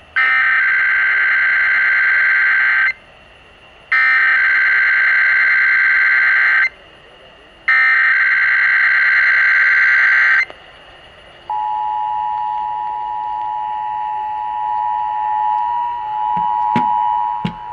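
Emergency Alert System test tones played over broadcast radio: three bursts of SAME digital header data, a harsh warbling screech each about three seconds long with a second's pause between, then about a second after the last burst the steady two-tone attention signal begins. A few brief clicks sound under the tone near the end.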